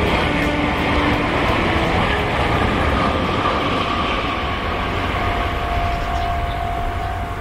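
Electric train of the Meitetsu Tokoname Line passing over a level crossing: a steady rumble of wheels on the rails with a faint whine, slowly fading as it moves away.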